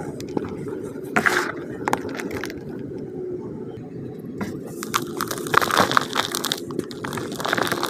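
Hands crushing and crumbling chunks of slightly damp pure cement, which crunch and break up into powder in several short bursts. The busiest crumbling comes from about four and a half to six seconds in, over a steady low hum in the background.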